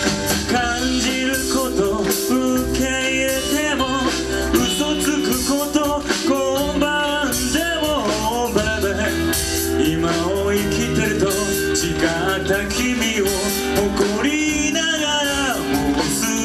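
Live rock band recording: a singer over electric guitar, bass and drums, with steady full-band sound throughout.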